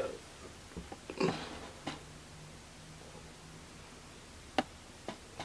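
Quiet handling noise: a couple of short rustles in the first two seconds, then a few sharp clicks near the end.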